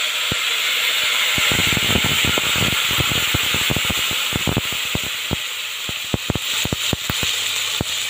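Water poured slowly into a pot of rice browned in hot oil, hissing and sizzling steadily as it flashes to steam, with many sharp pops and crackles throughout.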